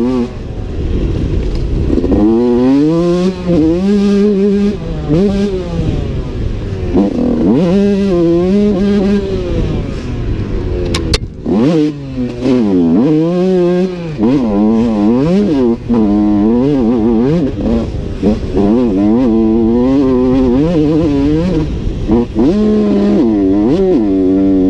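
Yamaha YZ125's single-cylinder two-stroke engine revving hard on a dirt track, its note climbing and falling over and over as the rider opens and rolls off the throttle and shifts, heard from on the bike. The engine note drops away briefly about halfway through before picking up again.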